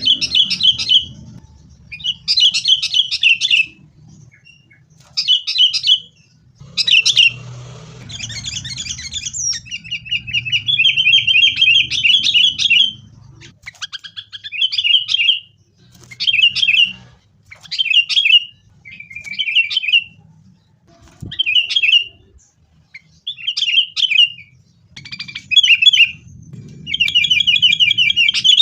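Sooty-headed bulbuls (kutilang) calling noisily and aggressively, in the manner of a fight. The calls come in short chattering phrases of rapid notes, about a second each, with brief pauses between them, and twice a longer run of quick repeated notes.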